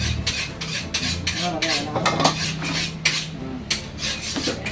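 Kitchen knife chopping vegetables on a chopping board: a quick, irregular run of sharp knocks, a few a second.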